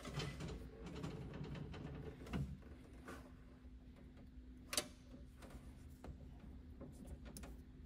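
Faint clicks and scrapes of a screwdriver turning a tiny bolt through a ground wire's ring terminal, with one sharper click about five seconds in, over a faint steady hum.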